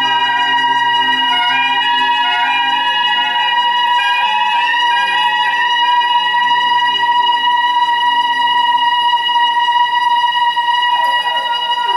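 Soprano saxophone holding one long high note over a backing track of changing chords.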